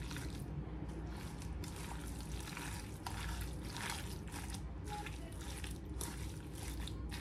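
Bare hands squeezing and kneading raw chicken strips coated in oil, onion and seasoning: an irregular run of soft, wet squelches as the marinade is worked into the meat.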